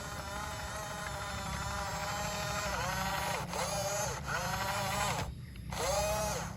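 Small electric motors of a remote-control excavator whining steadily, the pitch sagging and recovering several times as the machine's movements take up load, with a brief break just before the end.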